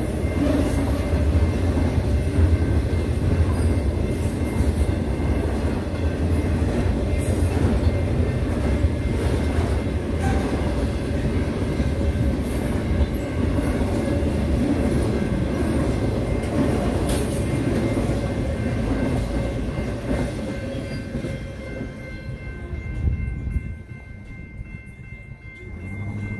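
Intermodal freight train cars rolling through a grade crossing with a steady low rumble of wheels on rail. The rumble fades away near the end as the last car clears. An electronic crossing bell rings throughout and is left on its own once the train has passed.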